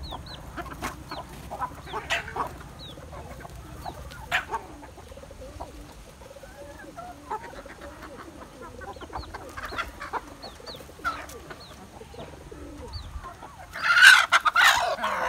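Free-range chickens clucking as they feed, with scattered short sharp ticks, and a loud burst of calling near the end.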